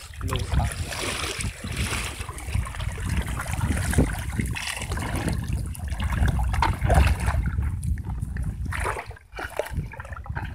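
Shallow water splashing and trickling as hands stir through a bucket of small live fish, with scattered wet clicks and slaps and a steady low rumble underneath.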